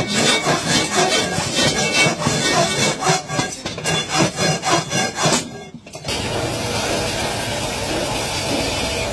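Large metal cooking pan being scraped by hand, with quick, uneven rasping strokes. About six seconds in, this gives way to the steady, even noise of a pan turning on a lathe.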